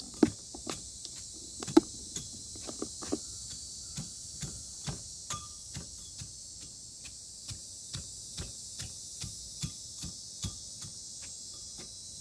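Light repeated tapping around a pole set in wet concrete, short knocks at about two to three a second, with a few louder knocks in the first two seconds. A steady high chorus of insects runs behind it.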